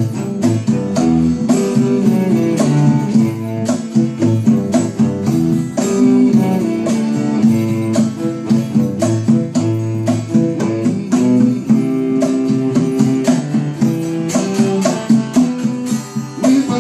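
Acoustic guitar played live with quick plucked and strummed notes, with a bowed cello holding low notes underneath.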